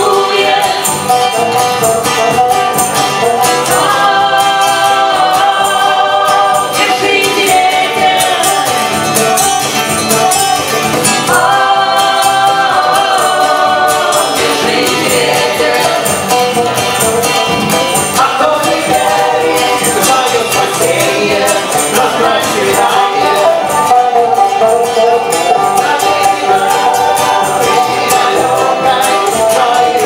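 Live country-style band performing a song: several voices singing together over strummed acoustic guitar, banjo and fiddle.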